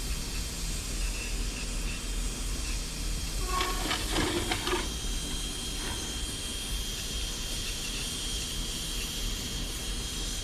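Blowtorch flame hissing steadily as it burns carbon off a diesel heater burner. A brief louder sound comes about three and a half seconds in, and a faint steady whistle joins from about five seconds on.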